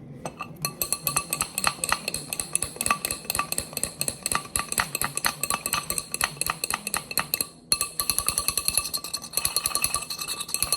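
Metal kitchen strainer used as a whisk, beaten quickly against its container while whipping instant coffee, making a rapid run of ringing clinks. The clinking stops for a moment about three-quarters of the way through, then starts again.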